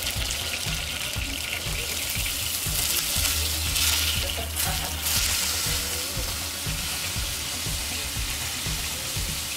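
Seabass fillet sizzling as it pan-fries in oil, a steady hiss that grows louder around four seconds in as the fillet is turned over.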